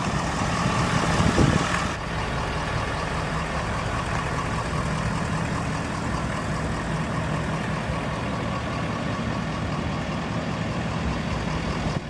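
Truck engine idling steadily, a low even hum, a little louder for the first two seconds.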